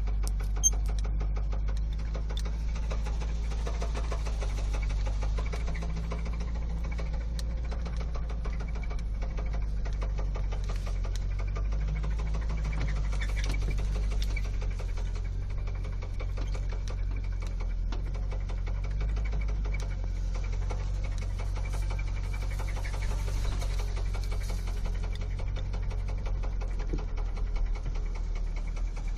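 1979 Oldsmobile Toronado's V8 engine running with a fast, steady mechanical knocking over a low drone; this is the engine knock the car is being taken to the workshop for.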